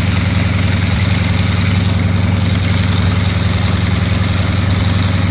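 Yakovlev Yak-52's nine-cylinder Vedeneyev M-14P radial engine running steadily with the propeller turning, with a loud, even, rapid pulsing beat.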